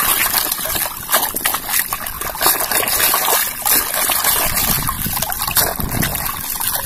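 Shallow water splashing and sloshing as a small plastic toy dump truck is swished back and forth through it by hand, a run of quick, irregular splashes.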